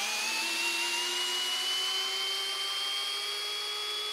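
Hilti SFE 2-A12 12-volt cordless drill driver driving a small lag screw into pine: a steady motor and gearbox whine that creeps slowly upward in pitch, then drops abruptly to a lower whine right at the end. The screw goes in without difficulty.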